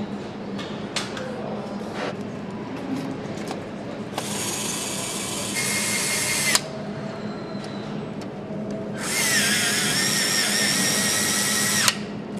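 A power tool runs in two bursts of about two and a half and three seconds, each with a high whine and each cutting off sharply. Scattered clicks and a steady low hum sit underneath.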